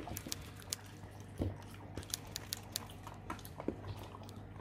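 Alaskan Malamute puppy eating raw food from a stainless steel bowl: irregular wet chewing and smacking clicks, with a louder knock about a second and a half in.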